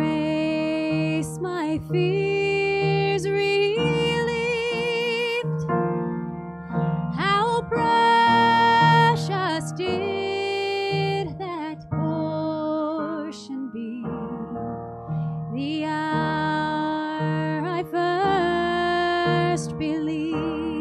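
Music: a solo singer with vibrato accompanied by piano, a slow sacred song.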